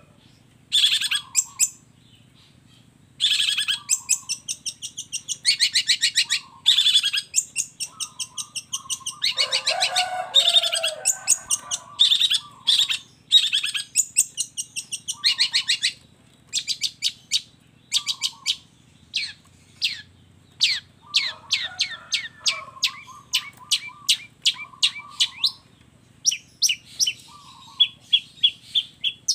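Long-tailed shrike (cendet) singing a fast, chattering song: rapid runs of short, sharp repeated notes with some lower notes mixed in, broken by a few brief pauses.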